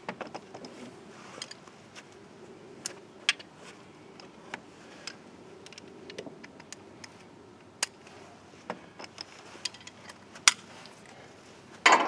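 Sparse, irregular light metallic clicks and clinks of a wrench working the blade adjustment bolts on a band sawmill, turned a little at a time.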